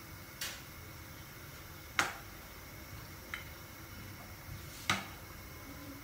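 A kitchen knife knocking on a plastic cutting board four times, sharp single clicks a second or more apart, as tomatoes are cut; the knocks about two seconds in and near the end are the loudest.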